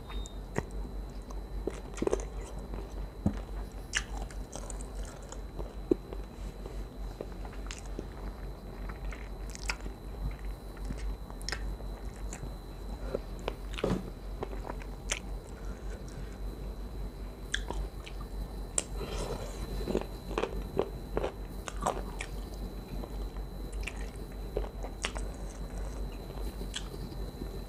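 A person chewing and biting food up close, with irregular sharp crunches and wet clicks scattered throughout. A faint steady high-pitched whine runs underneath.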